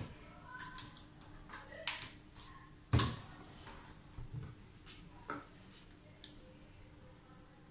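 A refrigerator door being handled and shut on a thermocouple wire: a few scattered knocks and clicks, the loudest a sharp knock about three seconds in.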